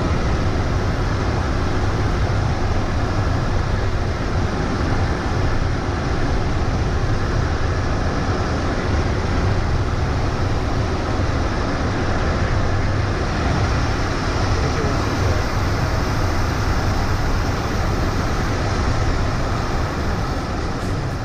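Steady in-flight cockpit noise of a Cessna Citation XLS business jet: an even rush of airflow and engine noise with a deep rumble underneath, unchanging throughout.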